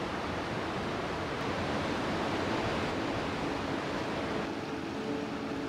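Shallow mountain river running over granite rocks: a steady rushing of water.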